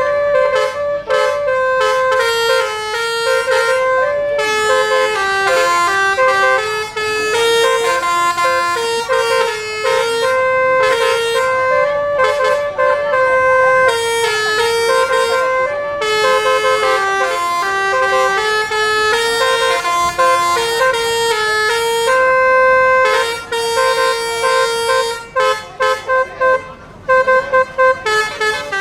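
A bus's Basuri V4 multi-tone telolet horn playing a melody. Held and short horn notes step up and down in pitch with little break, ending in a run of quick short toots.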